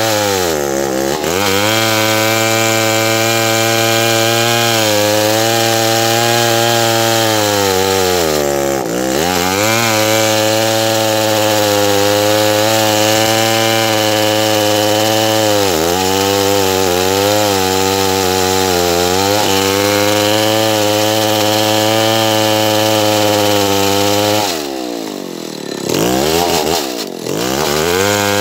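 Stihl 070 two-stroke chainsaw running at full throttle while cutting acacia wood, its note dipping briefly now and then as it takes load. Near the end the engine drops off and quickly comes back up twice before running on at full speed.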